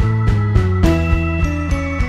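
Background music: a quick tune of bell-like mallet-percussion notes over a steady low bass line.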